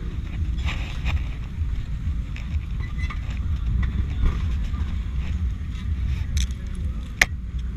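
Motorbike engine running at low revs after the louder pulsing of the moment before, with a steady low rumble, scattered light clicks, and one sharp click about seven seconds in.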